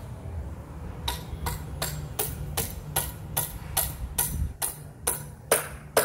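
Hammer driving a nail into the wooden pergola's post-and-beam joint: steady strikes, about two or three a second, the last few loudest.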